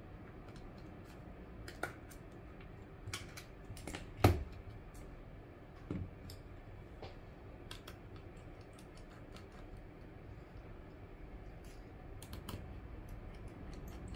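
Irregular small clicks and taps of a thin prying tool and fingers on an iPhone 6's display and housing as the phone is opened up and its internals handled. The loudest single click comes about four seconds in.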